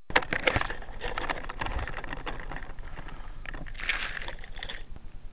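RC helicopter crashing, heard through its onboard key-fob camera's microphone: a sharp impact, then a run of irregular knocks, clatters and scraping as it comes down in the grass. The crash was caused by radio interference. Near the end a faint, even ticking begins.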